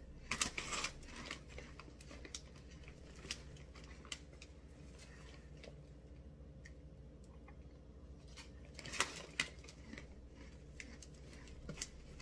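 Crinkling of a Flamin' Hot Cheetos Puffs snack bag as a hand rummages inside it for puffs, in short scattered crackles, with a small cluster at the start and another near the end, over a faint steady hum.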